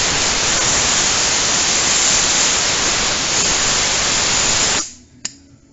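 Compressed-air blow gun hissing in a loud, steady blast as it blows water out of pinch seams and screw holes on a car's underbody, cutting off sharply about five seconds in, followed by a brief click.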